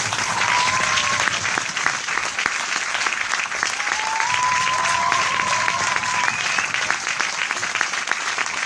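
A large audience applauding steadily, a dense patter of many hands clapping, with a few whistles rising through it, once near the start and again around the middle.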